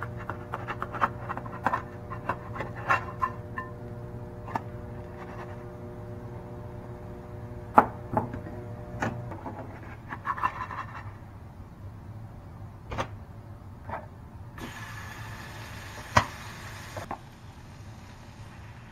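Plastic spatula knocking, tapping and scraping against a nonstick frying pan as a pancake is worked loose, turned and lifted out, with two louder knocks about eight and sixteen seconds in. Near the end a steady hiss lasts a couple of seconds and stops suddenly.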